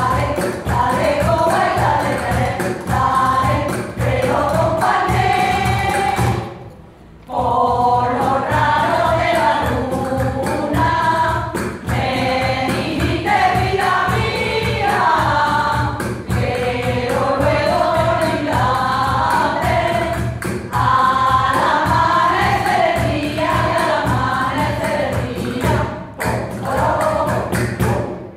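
Women's choir singing a Spanish folk song, accompanied by a cajón and hand-clapping. The singing breaks off briefly about seven seconds in, then carries on.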